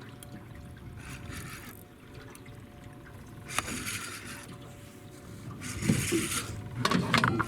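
Water splashing and sloshing in several separate bursts, the loudest and most broken near the end, over a faint steady hum.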